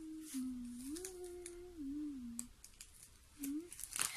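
A child humming a short tune that steps up and down, breaking off about two and a half seconds in, with a brief second hum near the end. Candy wrappers crinkle faintly as they are handled.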